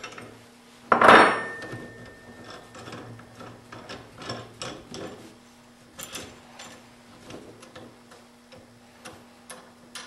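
Coil spring compressors being worked off a freshly assembled front coil spring and shock: a loud metal knock about a second in, then irregular small clicks and clinks of the compressor hooks and threaded rods.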